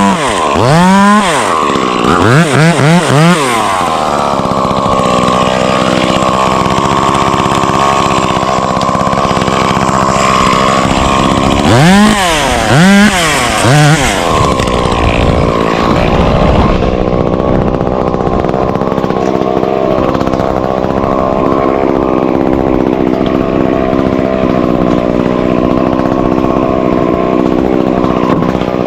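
Chainsaw revved in quick repeated blips for the first few seconds, then held at high speed. It is blipped twice more about twelve seconds in, then runs on steadily at a lower speed.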